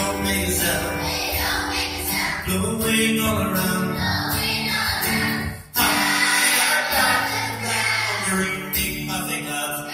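Large children's choir singing a song together, with a brief break a little past the middle before the voices come back in.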